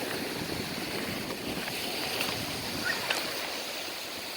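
Lake waves washing on the shore: a steady rushing hiss, with a few faint clicks.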